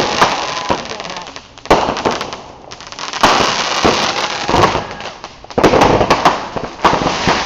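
Fireworks going off in a steady barrage: loud sharp bangs every second or two, with dense crackling between them.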